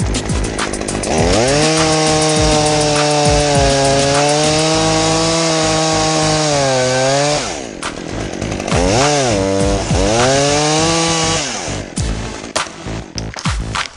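Two-stroke chainsaw at full throttle cutting elm wood, its engine held high for several seconds, dropping back, revving up again about nine seconds in and dropping once more near the end.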